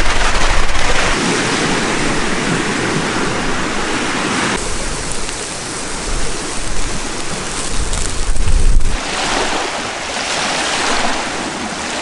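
Wind gusting across the microphone over choppy water, with the heaviest gusts rumbling about a second in and again shortly before nine seconds.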